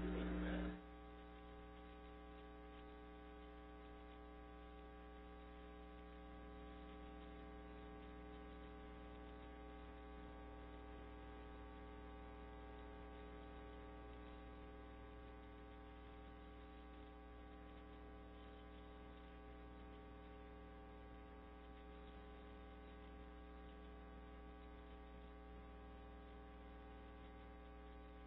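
Steady electrical mains hum in the audio line, a low buzz with a stack of even overtones. A louder hum cuts off suddenly under a second in, leaving the fainter hum running on.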